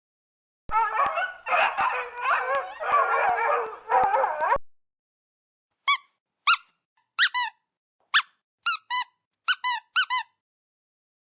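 A dog whining and howling with a wavering pitch for about four seconds, then, after a pause, a run of about ten short, high squeaks, each dropping in pitch.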